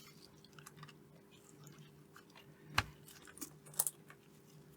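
Faint, scattered clicks and taps of small plastic blade fuses being handled and pushed into a relay/fuse board's sockets. The sharpest click comes just under three seconds in, with a few quicker ones about a second later.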